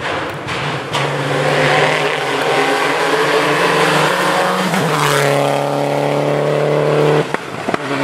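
World Rally Car's 1.6-litre turbocharged four-cylinder engine running hard at high revs. The note shifts and grows louder and fuller about five seconds in, then drops off abruptly for a moment near the end.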